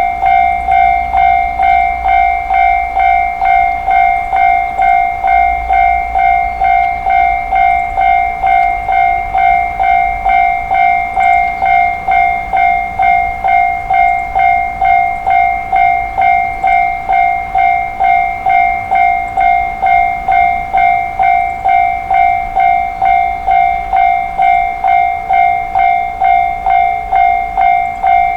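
Japanese railway level crossing warning bell ringing 'kan-kan' in an even, rapid beat of about two strokes a second, the signal that a train is approaching and the crossing is closing. A faint low rumble runs beneath it.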